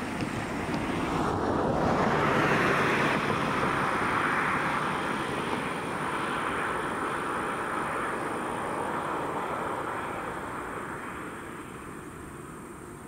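Boeing CH-47 Chinook helicopter taxiing, its twin rotors and turbine engines making a steady noise. The noise swells about two seconds in, then slowly fades toward the end.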